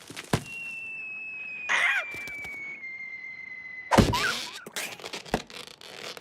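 Cartoon slapstick sound effects: a long, high whistle sliding slowly downward, a short squawking cartoon voice, then a loud thump about four seconds in with another squawk, followed by a few sharp clicks.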